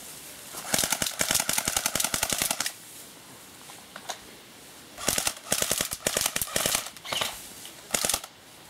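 Airsoft rifles firing fully automatic bursts, a rapid clatter of shots: one long burst about a second in, another after a pause of about two seconds, then two short bursts near the end.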